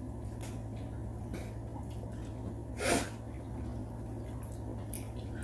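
A short, sharp sniff from someone eating spaghetti, about three seconds in. It comes over a steady low hum and a few faint clicks.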